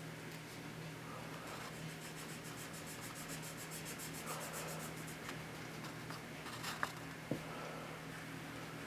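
A pen writing on paper in quick, repeated scratchy strokes over a steady low hum, with two sharp taps about seven seconds in.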